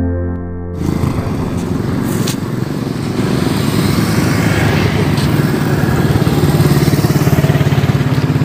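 Piano music cuts off about a second in. Motorcycle engines follow as bikes come over the crest of a steep concrete road close by, growing louder in the second half.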